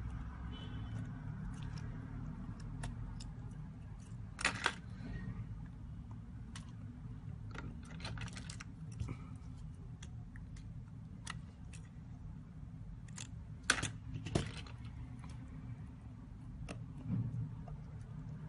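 Scattered small clicks and light metallic taps of hand tools working on a phone's parts, with two louder clusters, one about four and a half seconds in and one about fourteen seconds in, over a steady low hum.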